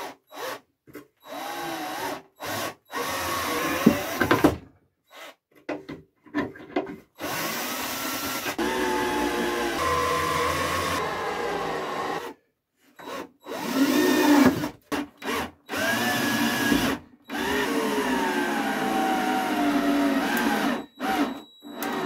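Cordless drill running into the wood of a beehive super in a series of runs, a few short ones and then several lasting a few seconds. Its pitch sags and recovers as the bit loads up in the wood.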